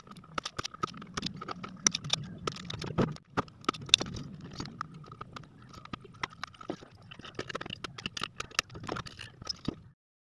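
Irregular clicks and knocks of an amplifier circuit board, hand tools and small parts being handled on a wooden workbench, over a faint steady whine and a low hum. Stops abruptly near the end.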